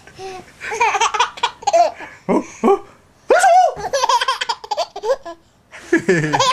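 A baby laughing in repeated bouts of belly laughter, set off by his father's sneezes, with a short pause before a sudden loud burst about halfway through.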